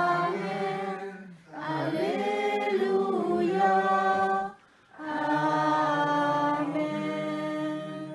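Unaccompanied chant-like singing in a low voice: three long, slowly moving sung phrases, with a short break for breath between each.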